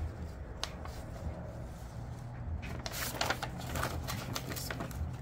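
Light hand-handling noises: a single click about half a second in, then a run of soft rustles and ticks about halfway through, over a faint steady low hum.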